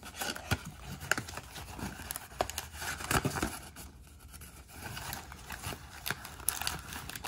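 Cardboard blaster box of baseball cards being pried and torn open, its flap folded back: a string of small tearing, scraping and papery clicks.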